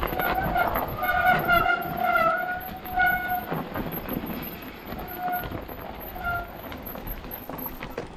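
Mountain-bike disc brakes squealing in short pitched bursts, several in the first few seconds and a few weaker ones later, over the constant rattle and tyre noise of the bike on a rough dirt trail.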